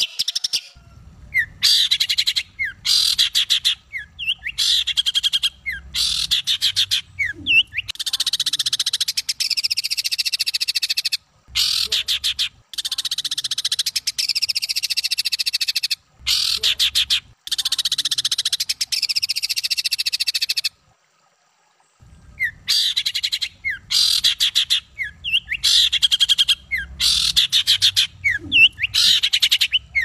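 Songbird singing harsh, very rapid rattling trills, burst after burst with short breaks between them, falling silent for about a second two-thirds of the way through.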